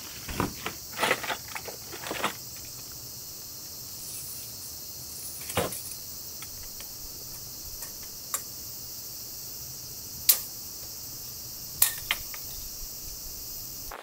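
Steady high chirring of insects, with scattered sharp knocks and taps from wooden battens being handled and fitted against the camper cabin's wall. Several taps come in the first two seconds, and the loudest knock is about ten seconds in.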